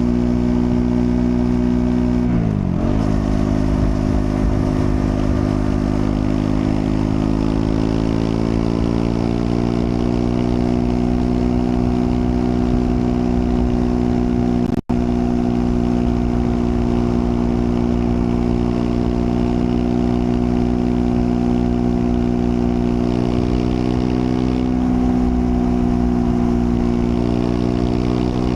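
Triumph Scrambler 400 X's single-cylinder engine running under way. The revs dip sharply and recover about two and a half seconds in, then the pitch climbs steadily as the bike accelerates and settles at a steady cruise. The sound cuts out for an instant about halfway.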